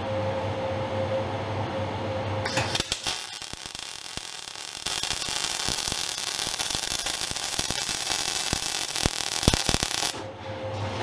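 MIG welder arc crackling and sizzling as it lays an outside corner weld on steel plate at a lower amperage setting. It starts about two and a half seconds in after a steady hum, grows louder about five seconds in, and cuts off suddenly shortly before the end.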